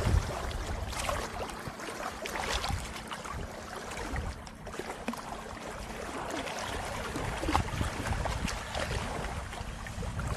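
Lake water lapping and splashing at the shore, with wind rumbling on the microphone and a faint steady hum under it.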